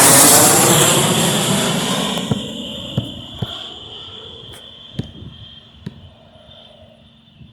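Airliner passing close by, its engine roar loudest at first and then fading away over about two and a half seconds. A faint steady high tone and a few sharp clicks are left.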